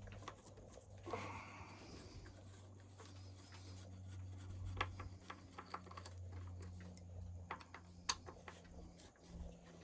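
Light, scattered clicks and scrapes of small screws, tools and plastic parts being handled while unscrewing parts of an RC truck's chassis, with one sharper click about eight seconds in. A steady low hum runs underneath.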